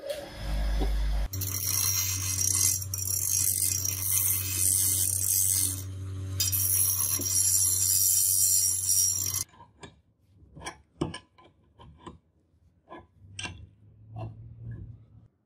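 Bench grinder running with a steady motor hum while a steel bar is ground on its wheel, a loud hissing grind that eases briefly around six seconds in. It stops suddenly near ten seconds, followed by a string of light metal clicks from a threading die being worked on a steel rod in a vise.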